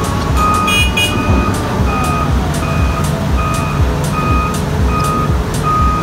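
SDLG E6138F excavator's travel alarm beeping in an even rhythm, about one beep every three-quarters of a second, over the machine's diesel engine running as it is unloaded from a lowboy trailer. A short high squeal sounds about a second in.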